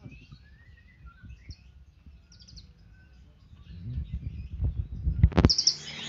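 Caged songbirds chirping faintly. Later come low knocks and rustling from a hand working inside a wire cage, then a sharp knock near the end and a burst of loud, dense chirping.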